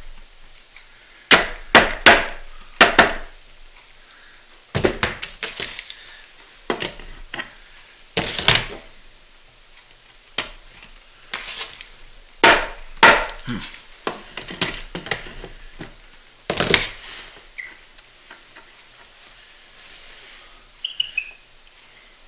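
Sharp knocks and clinks of tools and metal bolt hardware against a wooden rodel frame as the bolts are lined up and worked back through their holes. The knocks come in short, irregular clusters with pauses between them.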